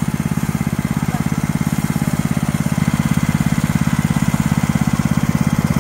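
Gas mini bike's small engine idling steadily with an even, rapid putter.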